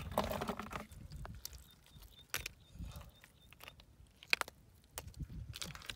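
Freshwater snail shells clicking against one another as they are gathered by hand from wet mud, with soft squelching of the mud. There is a brief rustling burst at the start, then a few separate sharp clicks, the loudest a little past four seconds.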